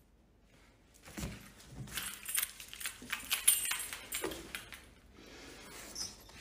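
A lanyard's metal clips and ID badge jingling and rattling as it is grabbed and swung. The jingling starts about a second in and turns fainter near the end.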